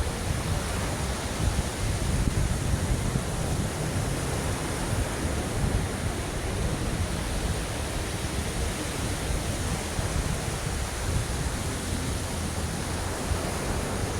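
Ocean waves before a storm: a steady, unbroken wash of surf with a deep rumble, no single breaking wave standing out.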